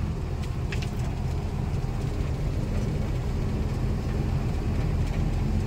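Truck engine running steadily at cruising speed with road noise, heard from inside the cab: a constant low hum.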